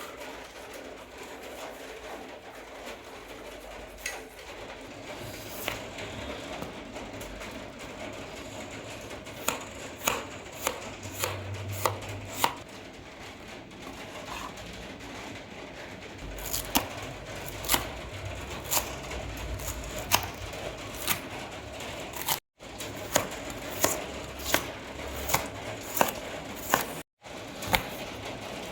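Knife chopping food on a cutting board: a few scattered chops at first, then a steadier run of chops about one or two a second through the second half.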